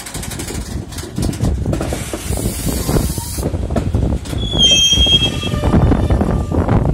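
Loaded JNA ballast wagons rolling slowly along yard track: a low rumble with clicks of wheels over rail joints, growing louder. About two seconds in comes a burst of hiss, and about four and a half seconds in a high wheel squeal lasting about a second.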